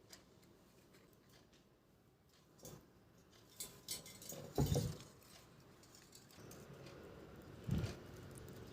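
Quiet household handling noises: scattered light clicks and rustles, with a soft thump about halfway through and another near the end.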